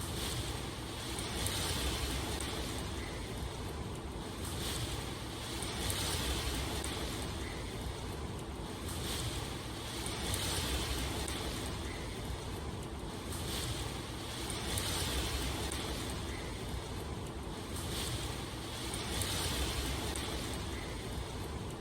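Rain ambience: a steady rushing hiss that swells and eases every two seconds or so.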